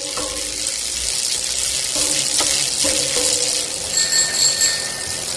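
Bicycle sound: a steady rushing noise with a few clicks. About four seconds in, the handlebar bell rings several times.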